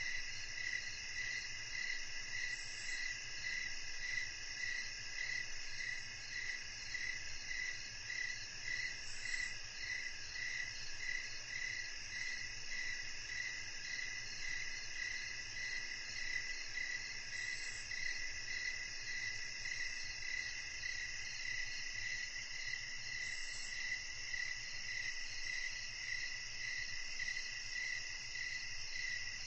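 Evening chorus of crickets: several insects calling steadily at once, one of them pulsing about twice a second.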